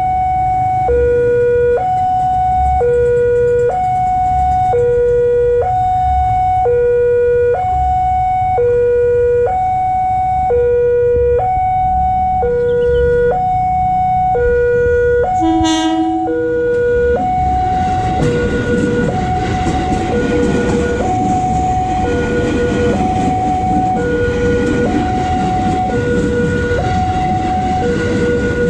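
Level-crossing warning alarm sounding a steady alternating high-low two-tone signal, each tone about a second long. About halfway through there is a brief horn blast, and after that a KRL commuter electric train rumbles past over the crossing while the alarm keeps sounding.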